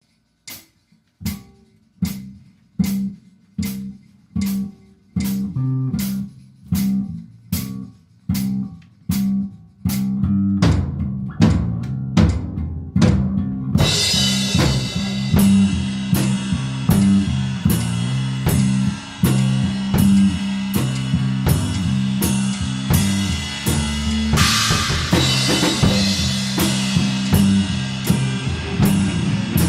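Instrumental rock music: a drum and bass groove with evenly spaced beats that starts sparse and builds, the full band with cymbals and guitar coming in about halfway through.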